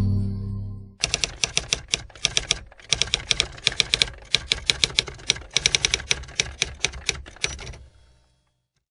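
Typewriter sound effect: rapid, irregular key clacks in runs broken by short pauses, as a title is typed onto the screen letter by letter. A music chord fades out in the first second, before the clacking starts.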